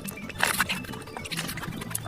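Close-miked eating sounds: quick chewing, smacking and clicking mouth noises in rapid succession, with a louder cluster about half a second in.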